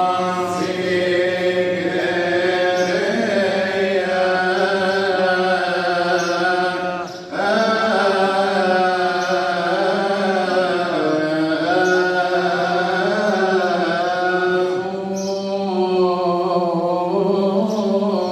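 A deacon's solo liturgical chant in the Coptic church style: one male voice sings long, ornamented held notes, breaking briefly for breath about seven seconds in.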